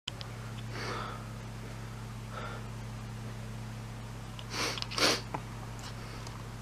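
A man sneezing: soft breathy catches about a second and two and a half seconds in, then two sharp bursts about half a second apart near five seconds in, the second the louder. A steady low hum runs underneath.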